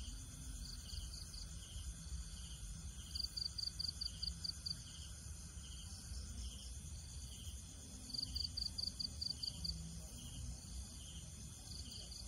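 Outdoor ambience of insects droning steadily. Three times, a series of six or seven quick, high chirps, about five a second, sounds over a low rumble.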